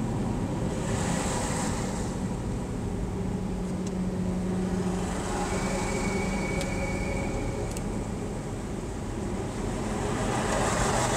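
Inside a slow-moving car on a wet road: steady engine and road rumble, with the hiss of tyres on wet tarmac swelling about a second in and again near the end.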